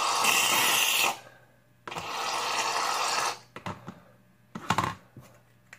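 Aerosol shaving-cream can hissing in two loud bursts as its nozzle is pressed, spraying mostly propellant because the can is nearly empty. A few short clicks follow.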